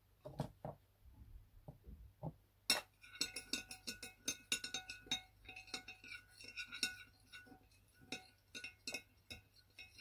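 A spoon stirring slime mixture in a bowl, with rapid, irregular clinking against the sides. A few soft knocks come first, and the clinking starts nearly three seconds in.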